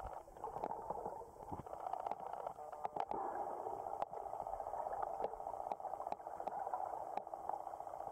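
Muffled underwater sound recorded through a camera's waterproof housing: a steady dull rushing of water with scattered small clicks and pops.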